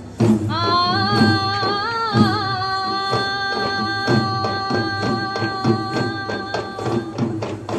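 Sri Lankan low-country (pahatarata) dance music: slung double-headed drums beat a fast, dense rhythm. From about half a second in, a long high note rises, wavers briefly, then holds steady over the drumming until near the end.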